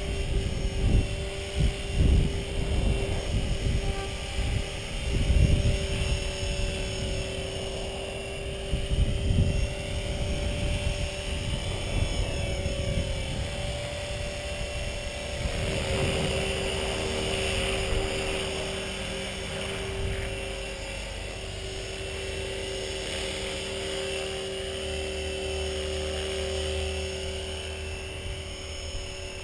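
Blade 450 electric RC helicopter's motor and rotor running at a steady, high whine. Uneven gusts of wind noise on the microphone fill roughly the first ten seconds, then ease off.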